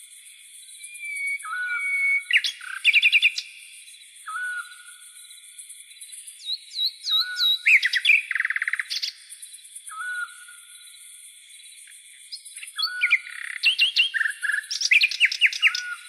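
Night-time nature chorus: a short whistled note repeats about every three seconds, while a bird sings bouts of fast trills and chirps, over a steady high insect trill.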